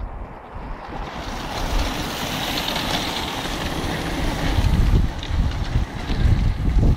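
A group of road-racing bicycles riding past over brick paving: a steady rush of tyres and bikes on the bricks that grows louder as the riders pass, with wind buffeting the microphone.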